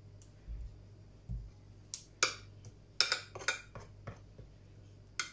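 A metal spoon clinking and scraping against a glass jug and a glass baking dish while spooning and spreading tomato sauce: a scatter of light clinks from about two seconds in, with two soft low thumps in the first second and a half.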